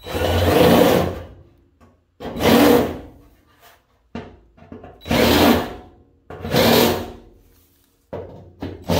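DeWalt cordless drill with a step bit cutting through thin rusted fender sheet steel in about four short runs of roughly a second each, each swelling then fading, with another starting at the end. The holes are being opened up one size to clean away their thin, rusted edges before welding.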